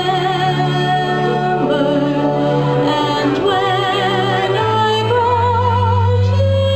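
Woman singing a vintage-style song into a microphone, holding long notes with a wide vibrato, over a low instrumental backing played through PA speakers.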